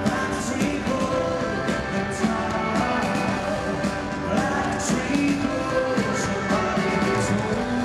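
Rock band playing live through an arena PA, heard from the crowd: a drum kit with repeated cymbal crashes over electric guitars and bass.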